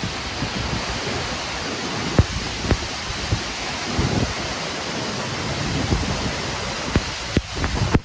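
Steady rushing roar of a tall waterfall, with wind buffeting the microphone in irregular low gusts and a few brief knocks.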